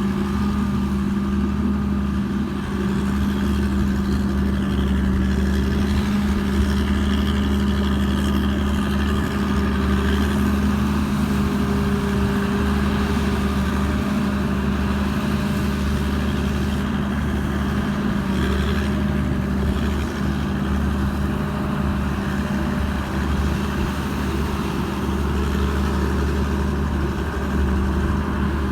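Diesel engine of a TAMCO Pro S9000 rice combine harvester, a Hino J08C, running steadily at constant speed with a low, even drone.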